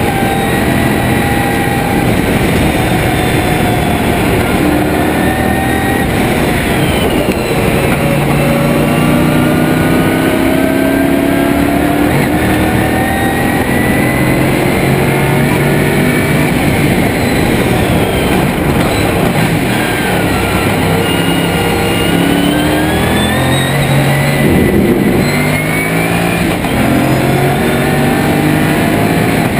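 Lotus Esprit V8 race car's engine at racing speed, heard from inside the cockpit, its pitch rising again and again through the gears and dropping briefly on downshifts for corners.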